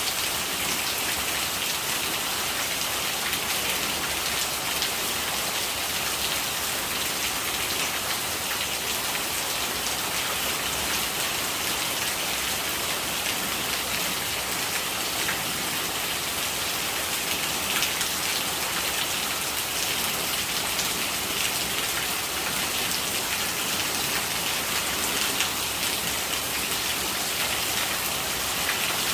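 Steady rain falling, with rainwater gurgling: an even, unbroken hiss of many small drops.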